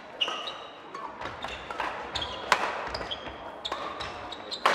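Badminton doubles rally: rackets striking the shuttlecock in a series of sharp cracks, the loudest about halfway through and near the end, with sports shoes squeaking briefly on the court floor.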